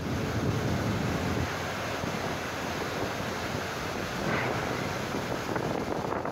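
Wind buffeting the microphone over the wash of sea waves, heaviest as a low rumble in the first second and a half.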